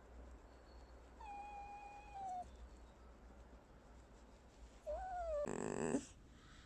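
Pet red fox whining: a thin high whine about a second in, then a second whine that rises and falls, breaking into a short, louder, harsh creaking call near the end.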